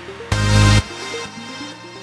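Background electronic dance music: a quick repeating synth arpeggio, with a loud heavy hit about a third of a second in that lasts about half a second.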